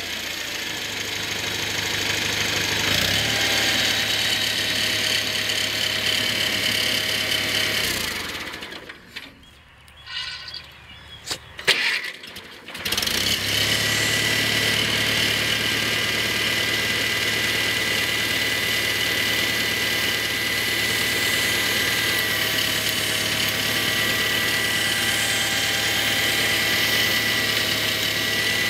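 1972 International Cub tractor's four-cylinder flathead engine running steadily, stopping about 8 seconds in, and starting again a few seconds later after a couple of sharp knocks, then running steadily once more.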